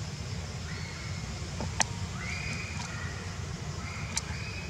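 Outdoor ambience: a steady low rumble, with several short, level high-pitched whistling tones and two sharp clicks, one near the middle and one near the end.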